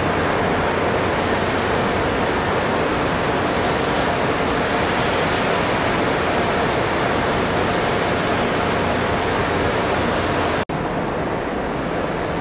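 Steady loud rushing noise of workshop machinery with a faint low hum underneath. It drops out for an instant near the end, then carries on slightly quieter.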